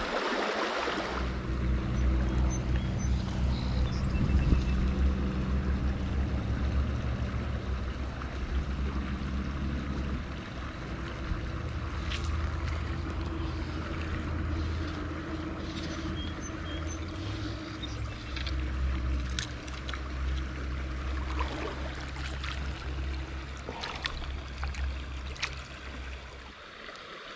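Shallow creek water running over a rocky riffle, a steady rush with a strong low rumble, with a few faint clicks here and there.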